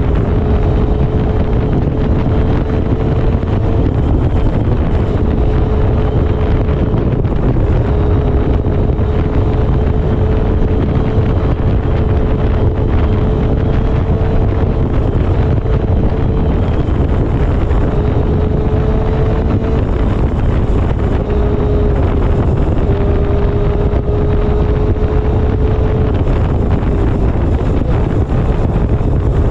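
Motorcycle engine running at a steady cruising speed, its note dipping briefly a few times, under heavy wind rumble on the microphone.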